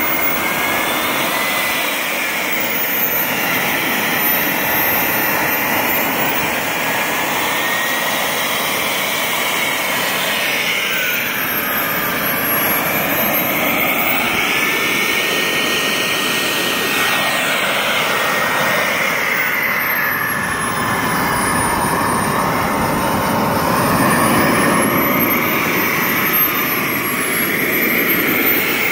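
SimJet 1200 model jet turbine in a 1/5-scale RC car running steadily, a loud jet rush with a high whistling whine that slowly rises and falls in pitch.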